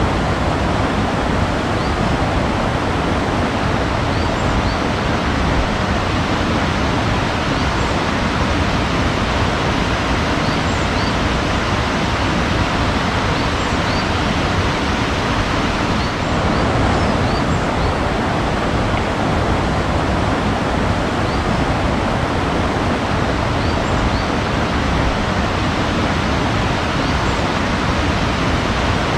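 Steady rushing water noise, even and unbroken, with faint short high chirps of birds scattered through it.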